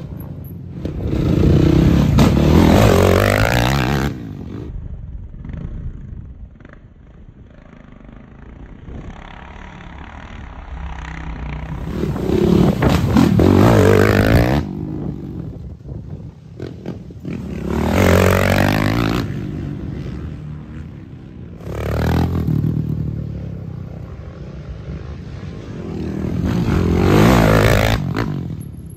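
Racing quads (sport ATVs) passing close by one after another, their engines revving hard as they accelerate through the turn. There are about five loud passes, two of which cut off suddenly, and between them the engines fade into the distance.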